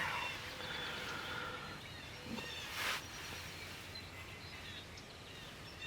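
Outdoor woodland ambience with small birds chirping faintly in the background, and one short sharp noise about three seconds in.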